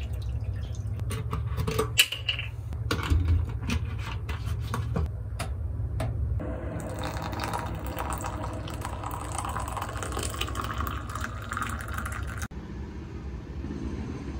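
Water poured from a plastic bottle into an electric kettle, with sharp clicks and handling sounds over the first few seconds. After that, hot water is poured steadily from the kettle into a cup for about six seconds. Near the end the sound drops to a quieter steady background.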